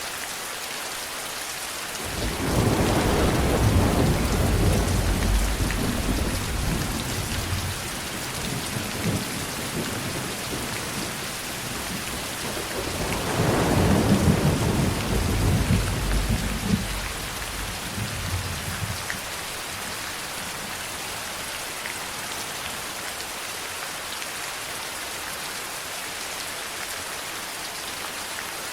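Steady rain falling, with two rolls of thunder: a deep rumble about two seconds in that fades over several seconds, and a second one near the middle that builds and dies away.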